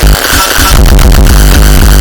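Loud electronic dance music with a heavy bass line. The bass drops out for about half a second near the start under a bright noise swell, then the full beat comes back in.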